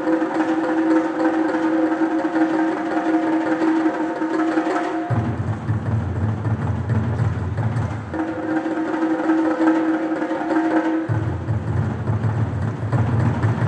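Japanese taiko drums played in sustained rolls: a higher-pitched roll with a steady ringing tone alternates with a deep low roll, switching about every three seconds.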